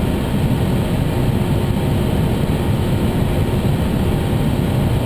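Airliner cockpit noise on final approach: a steady, even rush of airflow, engines and ventilation, heaviest in the low range, with a faint steady hum.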